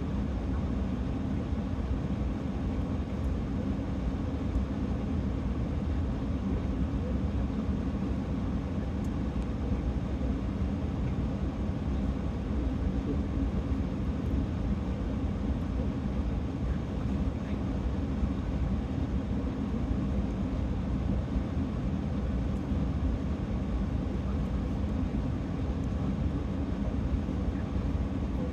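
Steady low rumble inside a parked truck's cab, typical of the engine idling, continuous and unchanging.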